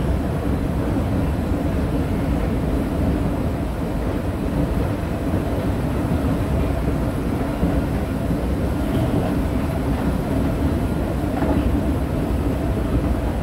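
Escalator running upward with a steady low mechanical drone and hum.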